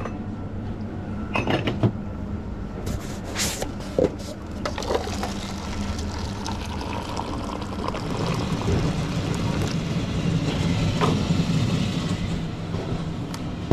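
Espresso machine being worked for an Americano: a few knocks and clatter of the portafilter and cup in the first seconds, then the machine running with a steady hiss as liquid pours into the cup, loudest a little past the middle.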